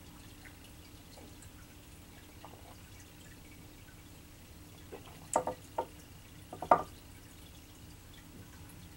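Quiet room, then a few short coughs and grunts from a man who has just downed a shot of strong liquor, the loudest cluster about seven seconds in.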